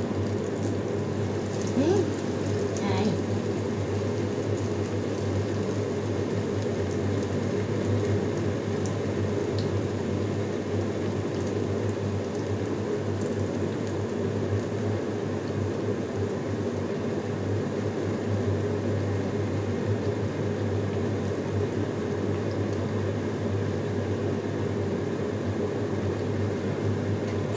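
Slices of bread frying in oil in a small skillet over high heat: a steady sizzle.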